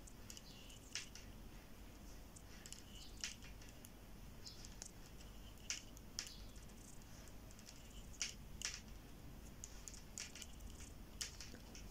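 Metal knitting needles clicking lightly against each other as knit stitches are worked: faint, irregular ticks, about one a second.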